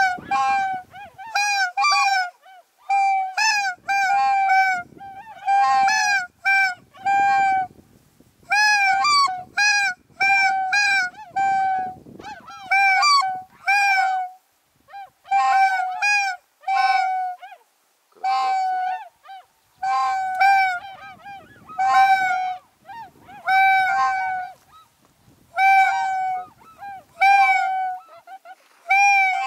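A flock of wild geese honking in flight: a continuous string of loud, clear honks, often in pairs, one or two every second.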